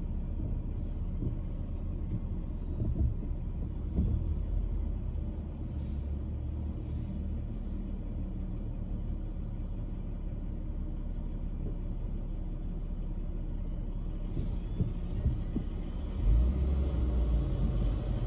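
Car on the move: a steady low rumble of road and engine noise, with a few brief bumps and a heavier rumble near the end.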